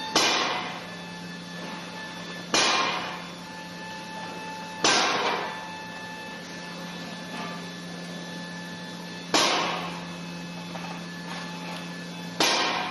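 Brake noise: five sudden clunks at irregular intervals, each trailing off over about a second, over a steady low hum.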